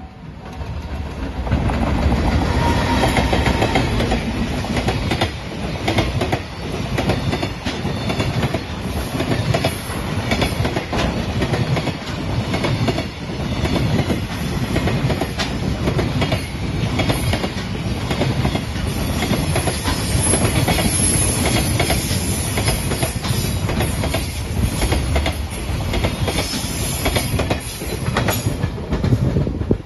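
JR Freight container train passing close by: a heavy steady rumble from the container flatcars, with the wheels clicking over the rail joints. It builds up about a second in and cuts off suddenly at the end.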